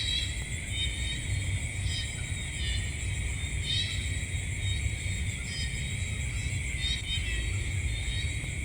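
Night insect chorus, a steady high shrill trilling, with short calls repeating about every two seconds over a low rumble.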